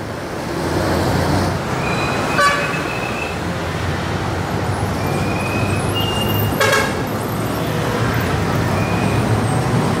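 Street traffic, motorcycles and cars idling and passing with a steady low engine rumble. Short horn toots sound several times, the clearest about two and a half and about seven seconds in.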